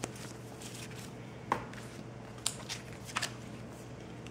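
Paper manuals and leaflets being shuffled and handled: a few short, sharp paper flicks and rustles over a faint steady hum.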